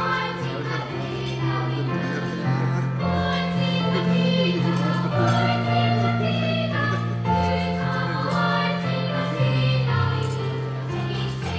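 Children's choir singing together over an instrumental accompaniment, its bass notes held and changing every second or two.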